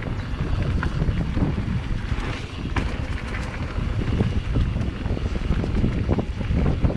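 Wind buffeting the microphone while riding a mountain bike along a dirt trail. Tyres crunch over the ground and the bike rattles in scattered clicks over the bumps.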